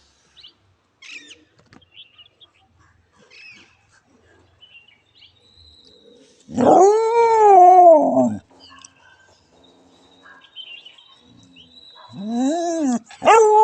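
A domestic animal's long drawn-out calls, each rising and falling in pitch: one of about two seconds near the middle, then two shorter ones near the end.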